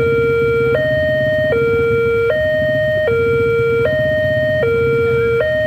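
Railway level-crossing electronic warning alarm sounding a steady high-low two-tone pattern, each tone held about 0.8 s. It signals that the barriers are down and a train is approaching.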